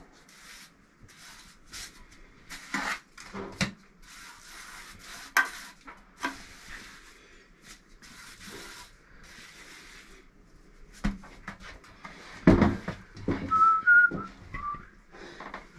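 Steel trowel scraping and scooping lightweight masonry mortar in a plastic bucket and spreading it on masonry, as a run of short gritty scrapes and light clicks. Around twelve seconds in come a few louder knocks, followed by a few brief whistled notes.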